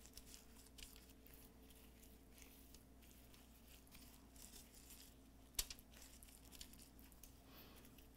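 Near silence with faint crinkling of aluminium foil and soft rubbing of gloved hands spreading marinade over a whole fish, with one sharper click about five and a half seconds in.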